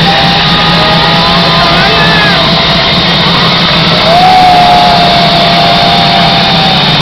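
Loud electronic dance music from a festival sound system, overloading a phone microphone into a distorted wash with a steady low bass hum. A long, high held note comes in about four seconds in and slightly raises the level.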